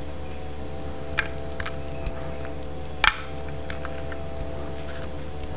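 A few light clicks and taps of toasted baguette crostini being set down and adjusted on a ceramic serving plate, with one sharper knock about three seconds in, over a steady low hum.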